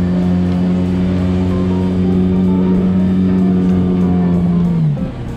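Yamaha 8CMH two-stroke twin outboard motor running steadily at high revs while the mini boat planes, with background guitar music. Near the end the engine note falls and drops away.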